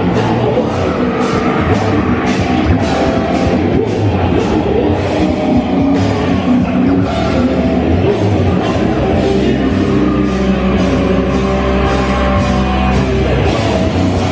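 Nu metal band playing live: distorted electric guitars, bass and a steady drum beat under a vocalist, in a rough live recording.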